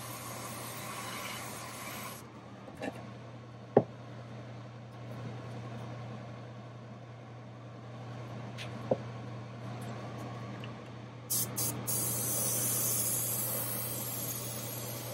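Airbrush spraying paint with a steady hiss that stops about two seconds in, over the steady hum of the paint booth's exhaust fan. A few sharp knocks follow, and the airbrush hiss starts again after a couple of clicks near the end.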